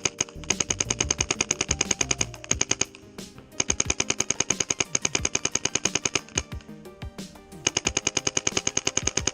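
Paintball marker firing rapid strings of shots through a 3D printed plastic barrel, three long volleys broken by short pauses about three seconds in and about seven seconds in.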